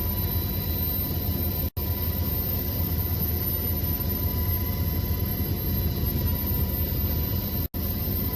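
Aircraft jet engines running steadily: a low rumble with a constant high whine over it, dropping out for an instant twice.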